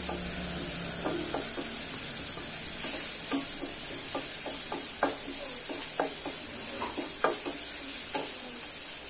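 Coarsely crushed ginger and garlic sizzling in hot oil in a frying pan, with a wooden spatula scraping and tapping against the pan as it is stirred, about two strokes a second.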